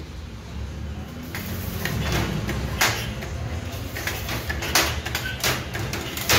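Steel rod and lever of a motorcycle lift platform's frame being worked by hand: a series of sharp metal clicks and clanks, about one every second or so, over a low steady hum.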